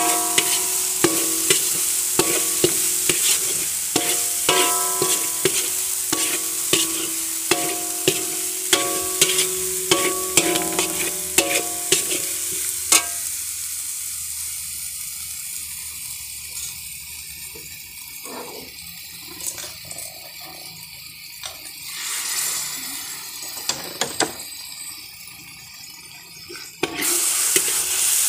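Spice paste sizzling as it fries in an aluminium wok, stirred with a metal spoon that scrapes and knocks against the pan, the wok ringing briefly after the knocks. About halfway the stirring stops and the sizzle sinks to a quieter hiss; near the end stirring and a louder sizzle return suddenly.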